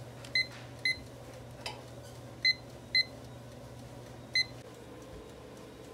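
Digital kitchen timer beeping with each button press: five short, high beeps, irregularly spaced, as it is set to four minutes.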